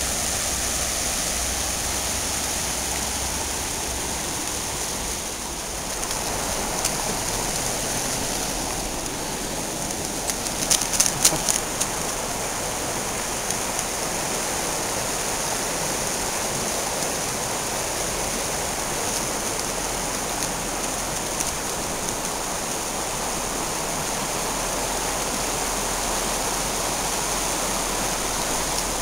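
Shallow river running steadily over stones, with a short cluster of sharp clicks about eleven seconds in.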